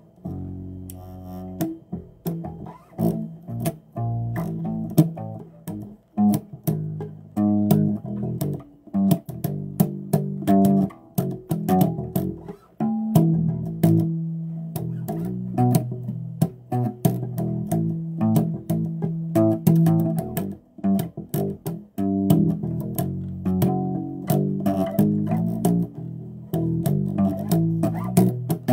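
Electric bass guitar played in a steady run of separate plucked notes, many with sharp percussive attacks.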